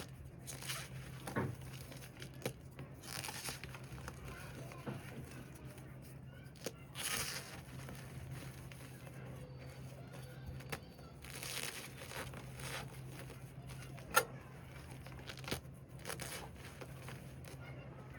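Reformed cornstarch slab topped with loose cornstarch being pressed and crushed by hand, giving squeaky, crunchy bursts every few seconds, with a few sharp clicks between them. A steady low hum runs underneath.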